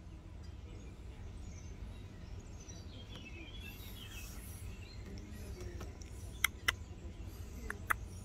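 Garden ambience: a steady low rumble with faint bird chirping about three to four seconds in, and four short, sharp ticks in two quick pairs near the end.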